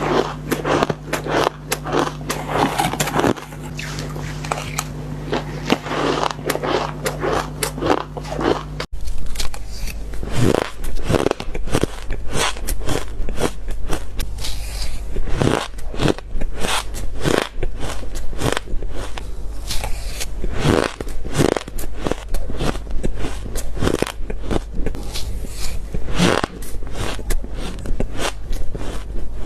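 Close-up crunching bites into shaved ice, one crisp crunch after another. A steady low hum under the dense first stretch stops at an abrupt cut about nine seconds in, after which the bites come more spaced out.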